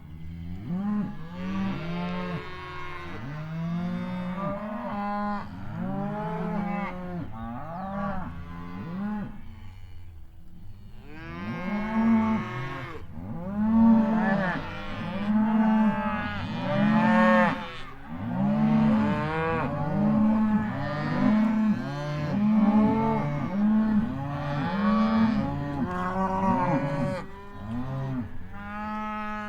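A herd of cattle mooing, many calls overlapping one after another with hardly a break, each rising and then falling in pitch.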